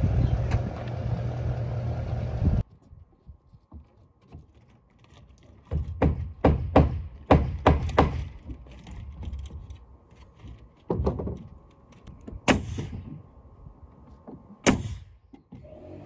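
A steady rush of outdoor noise that cuts off abruptly after about two and a half seconds. Then scattered sharp knocks and thunks from roofing work on a low-slope roof: a quick run of about a dozen between six and eight seconds in, a few more around eleven seconds, and two louder cracks later.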